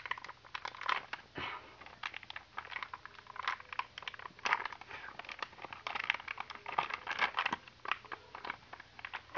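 Crinkly plastic toy packet rustling and crackling in irregular bursts as it is bitten and pulled at to tear it open.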